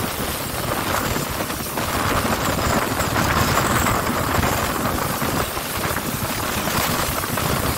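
Strong wind buffeting the phone's microphone, a rough, fluttering rush with no pauses.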